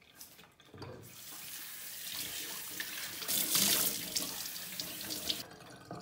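Water running from a tap, coming on about a second in and cut off after about four seconds, loudest in the middle.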